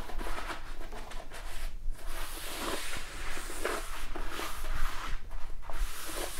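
Paper shop towel rubbing over a cast iron bandsaw table in repeated wiping strokes, taking off excess Boeshield T-9 protective spray.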